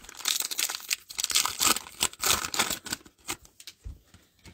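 Trading-card pack wrapper being ripped open: irregular crinkling and tearing, with cards rustling as they are pulled out, dying down near the end.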